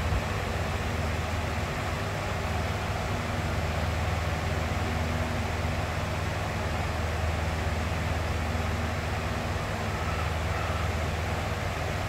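Box fan running steadily: an even rush of air over a deep, constant hum.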